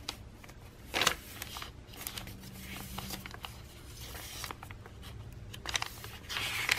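Paper pages of a handmade junk journal being turned and handled: soft rustling and sliding of tea-dyed paper, with a sharp tap about a second in and a longer rustle near the end as a page is flipped over.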